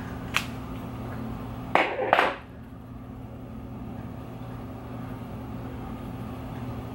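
Steady low electrical hum of room tone, with a single click near the start and two short hissy sounds about two seconds in.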